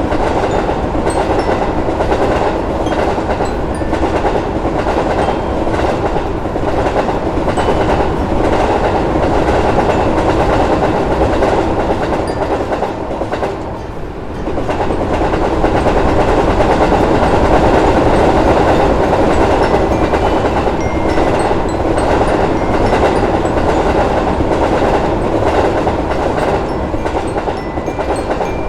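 Train running past with its wheels clattering steadily over the rail joints, a dense rumble that dips briefly about halfway through and then picks up again.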